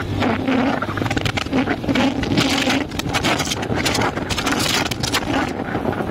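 Honda Twister motorcycle's single-cylinder four-stroke engine running as the bike is ridden along a street, with wind buffeting the microphone in quick gusts. The engine is pulling freely now that a local-made air filter, which kept it from going past 20–30 km/h at full throttle, has been replaced with an original one.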